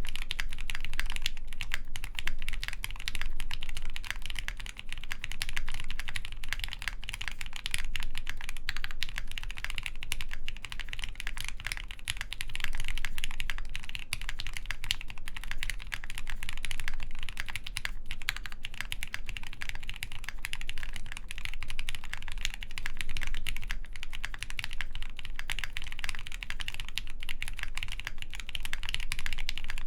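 Steady, continuous typing on a Pixelspace Capsule mechanical keyboard with Krytox-lubed Gateron Hippo switches, a polycarbonate plate and GMK Shoko keycaps: a dense stream of keystroke clacks.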